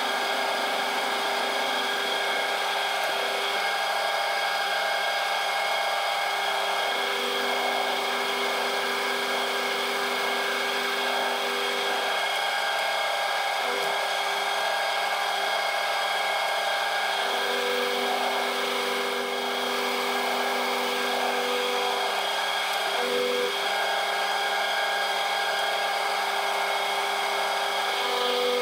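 Cincinnati milling machine running steadily, its angled cutter milling a tooth of a ratchet wheel under flood coolant. There is a constant machine whine with several steady tones, and a couple of lower tones cut in and out every few seconds.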